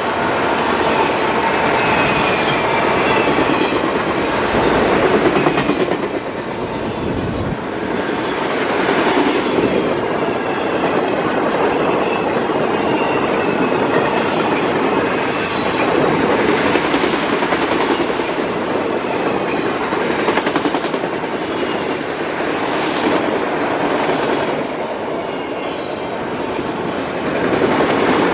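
Autorack freight cars rolling past on steel wheels, with a continuous rumble and clatter of wheels over the rail joints that swells and eases every few seconds. A faint high wheel squeal sounds in the first several seconds.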